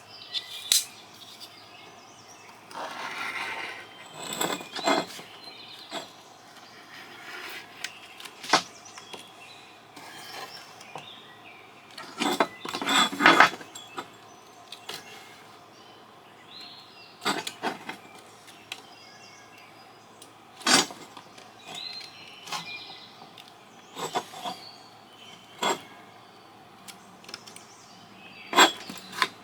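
Hand tool cutting and prying along the seal of a satellite LNBF housing to split it open: scattered sharp clicks and knocks with a few short scraping stretches, the longest about three seconds in and about twelve seconds in.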